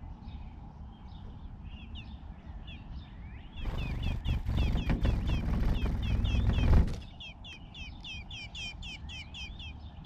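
Sparrows chirping over and over in quick, short, down-slurred notes, several a second, getting busier about four seconds in. A louder low rumble comes in with them for about three seconds and then drops away.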